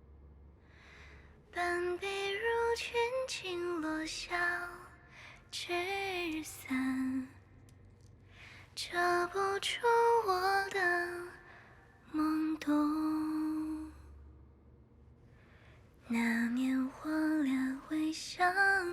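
A woman singing a slow melody on a song demo recording, in phrases of a few seconds separated by pauses, with held notes.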